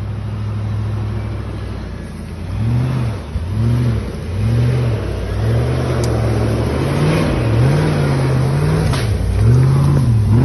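Land Rover Discovery's engine running steadily, then revved up and down again and again in short blips as the truck crawls off-road through undergrowth, with a longer held rev in the second half.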